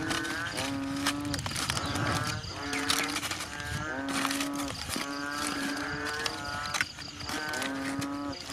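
Aluminium foil crinkling and crackling as hands unwrap and crumple a foil-wrapped roast chicken. Under it runs a pitched sound that repeats about once a second, a level note alternating with a rising one.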